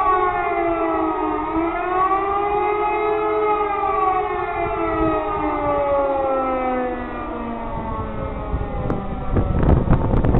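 E57 electromechanical civil-defence siren sounding the German public warning signal, its tone rising and falling; after one last dip and rise it winds down in a long falling tone and fades away. Wind buffets the microphone near the end.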